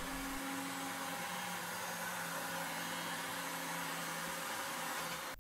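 Router motor mounted in a PantoRouter joinery machine, running steadily under a wide hiss while it is guided through a test cut in a wooden workpiece.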